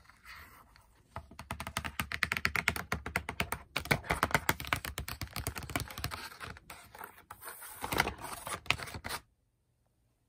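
Fingernails tapping rapidly on a printed cardboard box and its clear plastic crayon blister, a dense run of small clicks. It cuts off suddenly near the end.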